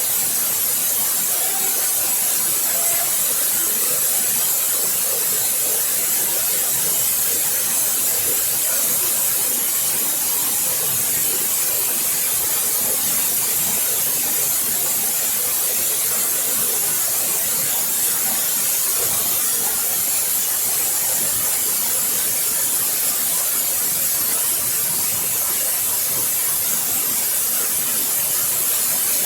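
Waterfall: water pouring down and splashing in a steady, bright, unbroken rush.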